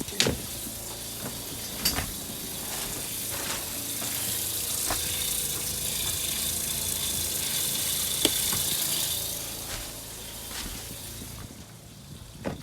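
Water running from a kitchen tap into a sink, driven by a newly fitted electric water pump, with a few sharp clicks. The flow builds over the first couple of seconds and eases off in the last few seconds.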